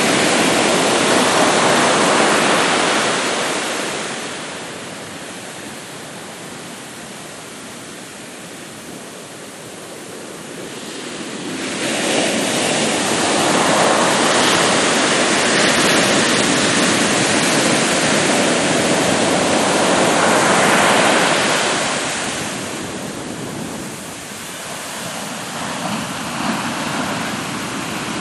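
Ocean waves breaking and washing up onto a sandy beach, a steady rushing surf that swells and ebbs: loud at the start, easing off for several seconds, then a long loud surge through the middle before settling again near the end.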